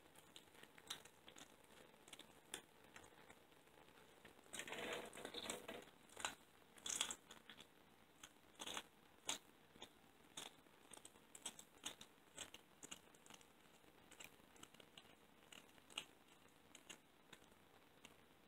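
A cat chewing a raw Cornish hen leg, its teeth crunching through bone and meat in irregular, separate crunches, with a dense run of crunching about five seconds in.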